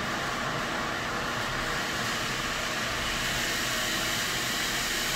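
Steady, even hiss with a faint hum underneath, growing slightly louder about three seconds in.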